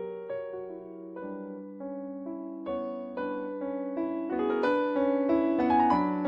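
Kawai CA67 digital piano playing one of its grand piano sounds: a slow passage of notes and chords over a held low note, quiet at first and getting louder from about the middle.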